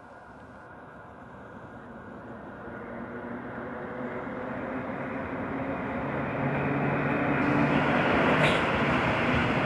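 Freight train approaching, growing steadily louder, with a low hum coming in as it nears and a brief sharp click about eight and a half seconds in.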